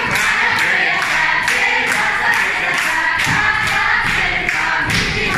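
A group of girls' voices singing a Hungarian folk song together without instruments, with dancers' feet stamping in a steady beat about two to three times a second.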